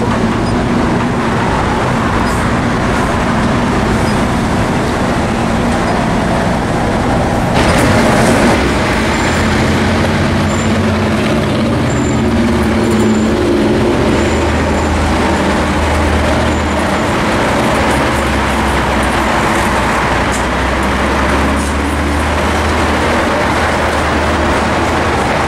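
City street traffic at a busy intersection: cars passing with a continuous rush of engine and tyre noise, and a steady low engine drone that comes in about a third of the way through.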